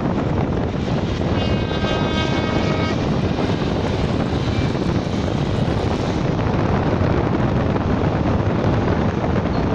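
Diesel tractor engines running as a line of tractors drives past close below, one after another, in a steady dense drone. A steady high-pitched tone joins in for about a second and a half shortly after the start.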